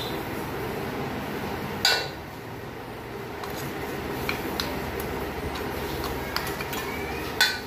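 Steel spoon scraping and tapping inside a stainless-steel mixer-grinder jar, knocking ground paste into a steel bowl, with sharp metal clinks, the loudest about two seconds in and another near the end. A steady hum runs underneath.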